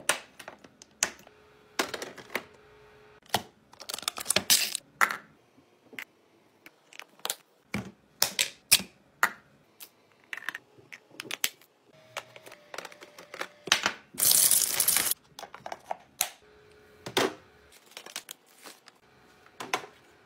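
Drinks and snacks being handled and set into a mini fridge during a restock: a string of sharp clicks and knocks from cans, bottles and containers being placed, with packaging crinkling. About two thirds of the way through comes a louder tearing or rustling of packaging that lasts about a second.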